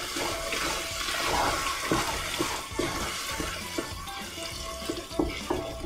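Tomato-and-vegetable sauce sizzling and bubbling in a pot as the lid comes off, then a wooden spoon stirring it, with several knocks against the pot. The hiss is loudest in the first few seconds.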